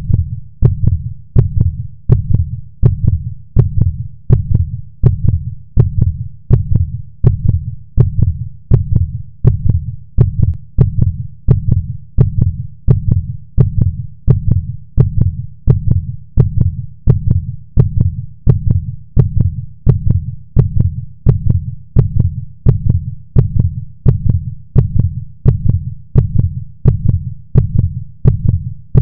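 Heartbeat sound effect: a steady run of deep, even thumps, a little more than one a second.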